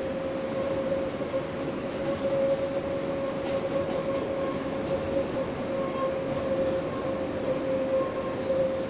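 R143 subway car running at steady speed, heard inside the car: a steady whine over the rumble of the wheels on the rails.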